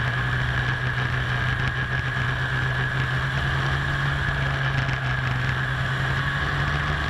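Snowmobile engine running at a steady speed while the sled travels along a groomed snow trail, a continuous even drone with a steady higher whine over it and no revving.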